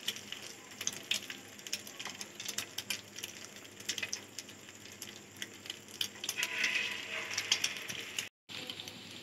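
Hot oil sizzling and crackling in a frying pan around an egg-dipped pinwheel snack, with scattered pops. About six and a half seconds in the sizzle swells for a second or so as a second piece goes into the oil.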